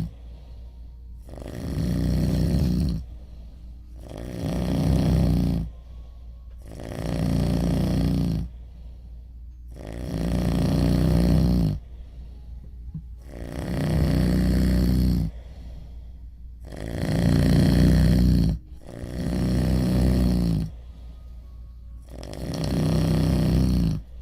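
Heavy snoring: eight long, loud snores about three seconds apart, with quieter breathing between them.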